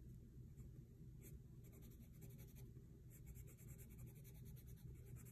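Faint scratching of a red colored pencil shading on drawing paper in quick, repeated back-and-forth strokes.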